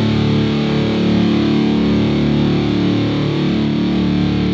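Rock music with distorted electric guitar playing held chords, without singing.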